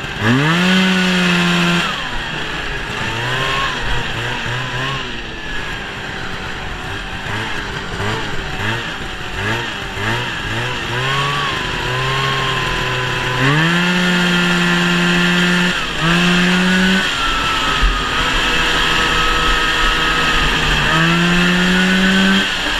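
1971 Ski-Doo TNT 640's two-stroke twin engine under way. It revs up sharply at the start and holds a high pitch, then drops lower with a run of short throttle surges. It climbs high again about two-thirds of the way through, dips briefly, and opens up once more near the end.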